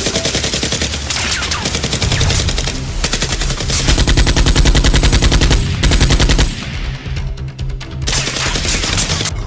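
Rapid automatic-gunfire sound effects dubbed over toy blasters, in long fast bursts that thin out briefly about two-thirds through, with background music underneath.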